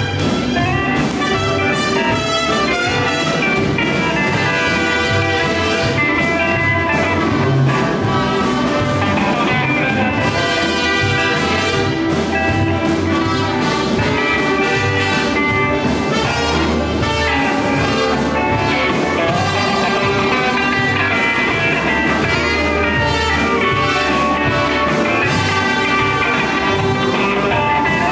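Live band playing an improvised instrumental passage, the trumpet leading over electric guitars, bass guitar and a drum kit with a steady beat.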